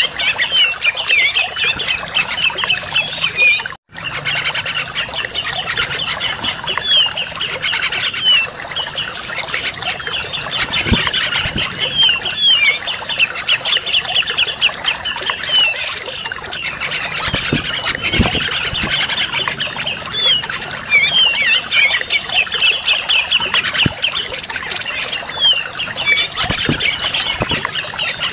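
Cucak jenggot (grey-cheeked bulbuls) calling in a dense, fast chatter of short notes, with a brief break in the sound about four seconds in.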